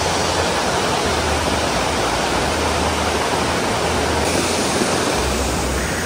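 Mountain river rushing over rocks in a gorge: a steady, even rush of water.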